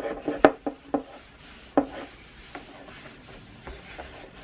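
A cloth buffing dried wax polish off a Brooks leather saddle: a series of short, irregular rubbing strokes and light knocks as the saddle is worked, most of them in the first two seconds.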